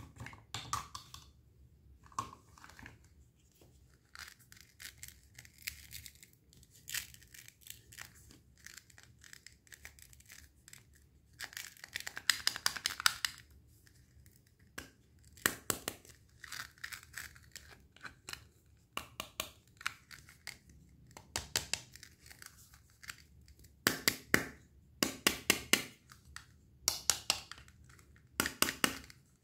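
Knife cutting through fresh fruit: a run of crisp cutting strokes, many of them in quick clusters, the loudest about halfway through and again near the end.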